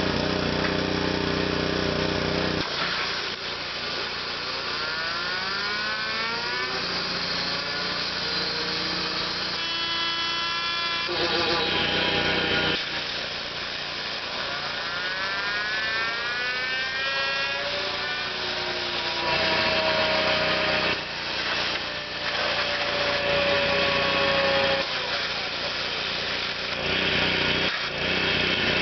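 Engine-driven belt pulley running on a Bobcat mower with a pitched whine that climbs several times, holds steady for a moment, and later slowly falls, over the steady sound of the machine running. The owner is unsure whether this pulley noise is normal.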